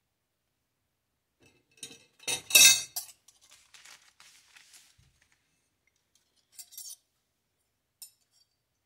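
Metal cutlery clattering as a table knife is picked up, loudest about two seconds in. Then the paper sandwich wrapper crinkles, something knocks softly, and the knife gives a couple of short clinks near the end.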